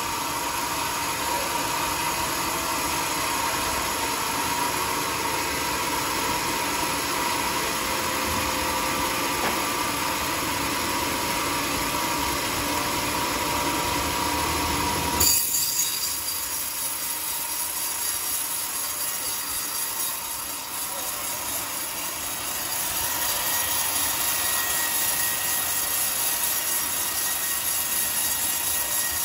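Homemade band sawmill's blade running through a teak log: a steady mechanical whine with the hiss of the cut. About halfway through the sound changes abruptly to a thinner, hissier tone.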